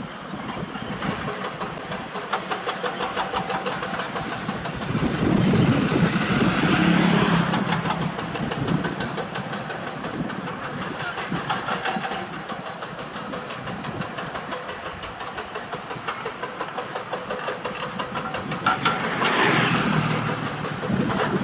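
Komatsu PC200 hydraulic excavators' diesel engines running as the machines dig. They swell louder twice, from about five seconds in and again near the end.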